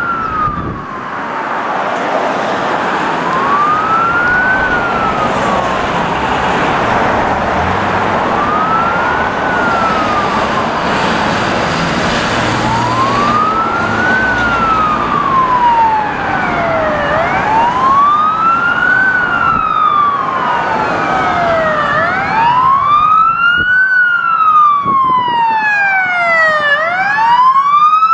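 Police car sirens on a slow wail, each rising and falling over about five seconds and getting louder as they approach. A second siren joins about halfway through, its wail overlapping the first. A steady rush of passing traffic lies underneath in the first half.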